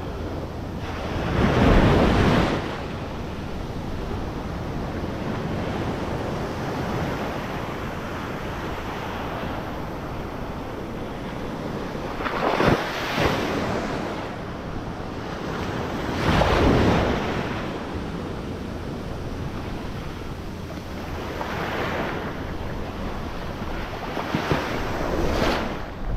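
Ocean surf breaking and washing on the beach, swelling loudly several times as waves come in, with wind rushing over the microphone.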